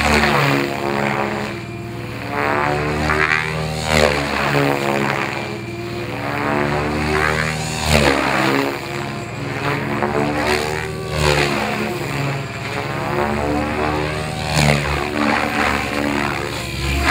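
Radio-controlled model helicopter flying and manoeuvring overhead: a steady whine from its rotor and motor, the pitch and tone sweeping up and down every few seconds as it swings past and changes attitude.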